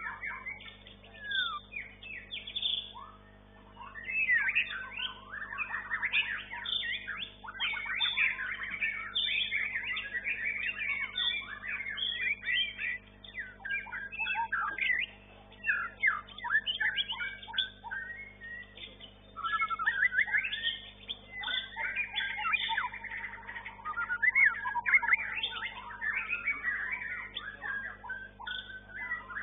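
White-rumped shama (murai batu) singing a fast, varied run of whistles and chattering notes, with a short lull about three seconds in, over a faint steady hum.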